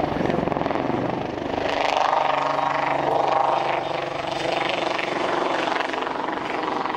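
Westland Lynx helicopter flying a display: the rapid beat of its rotor blades over the whine of its twin turboshaft engines, the level swelling and easing as it manoeuvres.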